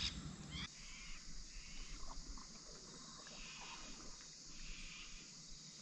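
Faint chorus of insects: a steady, even high-pitched drone.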